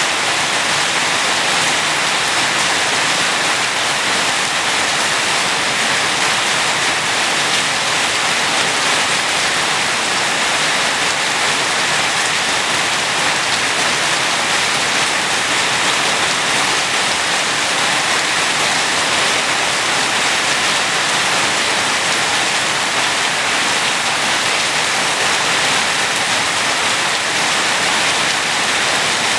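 Steady, heavy rain falling, an even hiss without breaks or single drops standing out.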